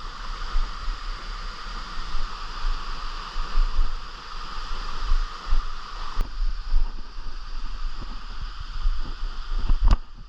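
Steady rush of river water, with an uneven low rumble on the microphone and a sharp knock near the end.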